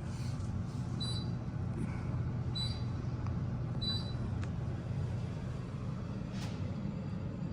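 Steady low rumble of a KONE passenger elevator car in motion, heard from inside the car. Three short high beeps sound about a second and a half apart in the first four seconds.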